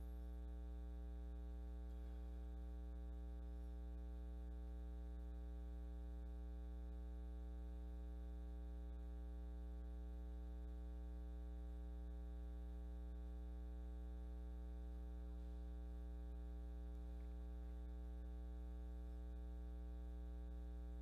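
Steady electrical mains hum with a buzzy row of overtones, unchanging throughout, over an otherwise quiet room during silent prayer.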